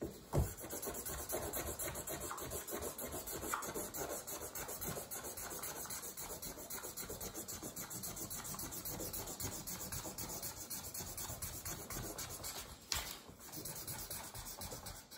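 Felt-tip marker scribbling on paper in quick back-and-forth strokes, colouring in a shape. A thump comes about half a second in, and one louder scrape near the end.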